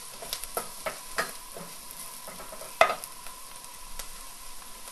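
Diced onion and curry powder sizzling as they fry in a stainless steel pot, while a wooden spoon stirs and scrapes against the pan. One sharper knock of the spoon on the pot comes about three seconds in.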